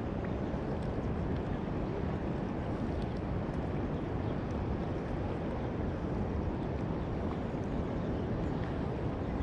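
Steady low rushing noise of wind on the microphone and water, heard from a small boat out on the river.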